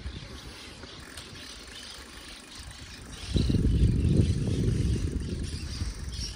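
Wind rumbling on the microphone, with a strong gust about halfway through that slowly eases off. Faint high chirping runs in the background.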